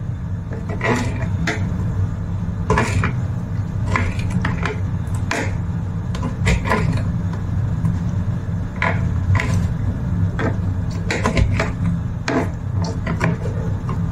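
Small kitchen knife cutting squid on a plastic cutting board: irregular sharp knocks of the blade on the board, about one every half second to second, with some scraping.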